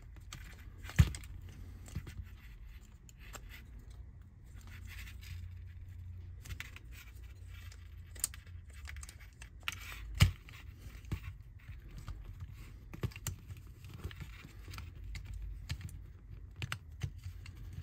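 Small clicks, taps and rattles of plastic and metal model-train parts being handled and clipped together as a motor bogie is reassembled, with a sharp click about a second in and another about ten seconds in.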